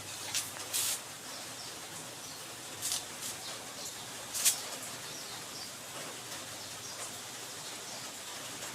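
Steady hiss of the air conditioner's indoor fan motor running, with a few short, sharp high chirps over it, the loudest about four and a half seconds in. The compressor has not yet started.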